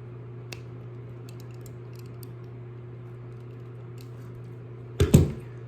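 Faint clicks and light ticking of small Cat 5e cable wires being straightened between the fingers, over a steady low hum. A short, louder clatter of handling about five seconds in.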